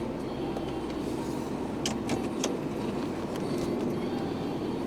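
Steady engine and road noise inside a moving car's cabin, with a few light clicks about two seconds in.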